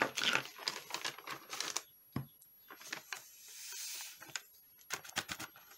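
Paper rustling and crackling as a sheet is picked up and folded, with a soft hiss about midway of loose embossing powder sliding off the paper back into its jar.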